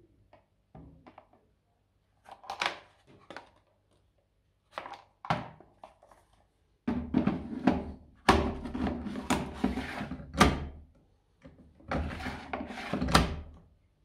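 Plastic detergent dispenser drawer of a Profilo washing machine being refitted: a few light clicks as it is handled, then sliding, rattling scrapes as it is pushed into its housing, with several sharp knocks as it is shut.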